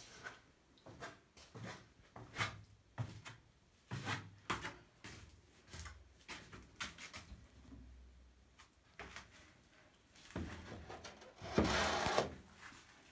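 Footsteps and light knocks on wooden cellar steps and boards, a few a second. Near the end comes the loudest sound: a glass jar of sauerkraut scraped onto a wooden shelf.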